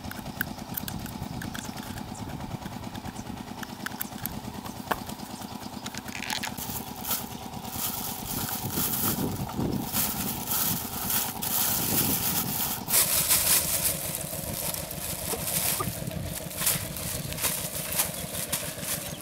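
Scissors clicking through a paper noodle cup, then from about six seconds in dense crinkling and handling noise as cups are packed into a plastic bag, over a steady engine hum.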